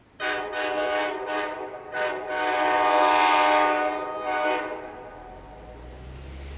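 Train air horn sounding a quick series of short blasts, then one long blast and a last short toot, dying away about five seconds in. A low rumble sets in near the end.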